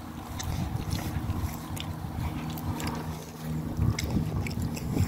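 Wind buffeting a phone's microphone as it is carried along, with an uneven low rumble over a faint steady low hum.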